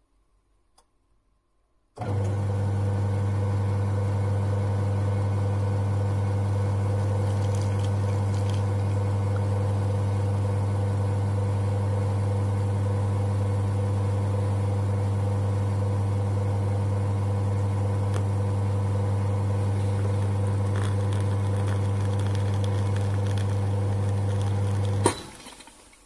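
MILESTO EM-30 espresso machine's pump running with a steady, even hum while it pushes water through the coffee to brew a shot. It starts about two seconds in and cuts off with a sharp click near the end.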